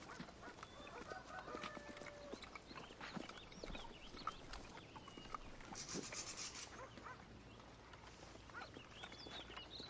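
Farmyard poultry clucking and squawking in short, scattered calls, with faint knocks among them.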